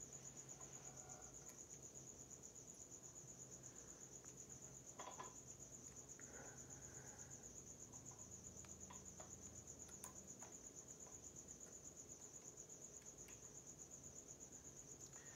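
Near silence: a cricket chirping in a high, rapid, even pulse, with a few faint clicks of small hand work.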